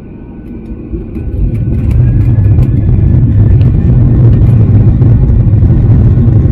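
A vehicle's low rumble that grows louder over the first two seconds, then runs loud and steady.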